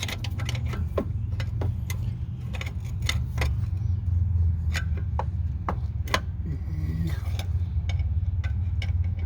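Screwdriver working against a rear disc-brake caliper and pad, trying to get a purchase to pry the caliper piston back: irregular sharp metal clicks and taps over a steady low hum.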